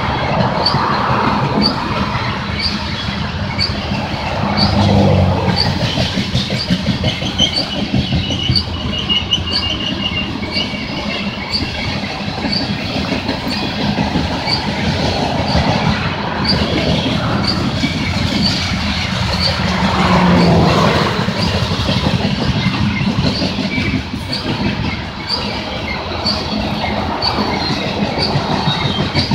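Loaded coal cars of a long BNSF coal train rolling past at steady speed: a constant rumble of steel wheels on rail with regular clicks about once a second, and a faint wheel squeal for a few seconds in the first third.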